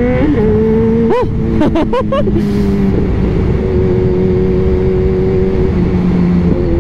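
Kawasaki Z1000 inline-four motorcycle engine with an aftermarket exhaust, running at a steady cruising pitch under a heavy rumble of wind. Between about one and two and a half seconds in, a few quick rising-and-falling engine revs from another engine cut across it.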